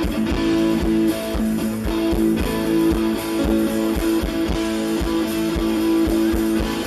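Live rock band playing an instrumental intro: held guitar chords over a steady drum beat.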